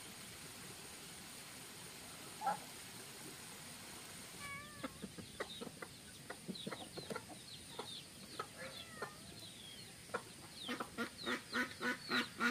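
A flock of chickens clucking in short, separate calls. The calls start a few seconds in and come quicker and louder near the end.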